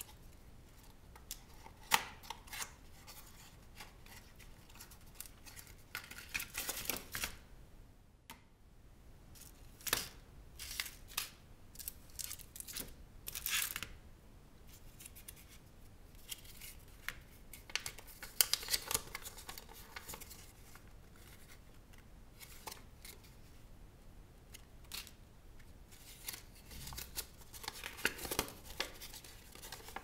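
Hands unboxing a small accessory: a cardboard box handled and opened, and a folded paper instruction leaflet rustled and unfolded, in scattered bursts of rustling with small clicks.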